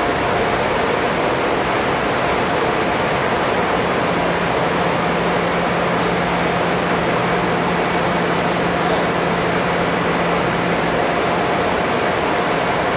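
Steady, loud rushing drone of machinery in a large railway maintenance shed, with a faint high whine running through it. A low hum comes in about four seconds in and fades out a little before the end.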